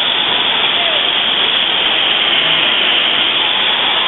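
Steady, loud rushing and splashing of water in an indoor water play area, an even noise with no break.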